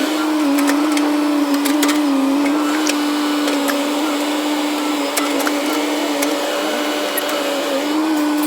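A JCB JS205 excavator running under load: a steady, even engine and hydraulic whine with a slight waver in pitch, and scattered small knocks.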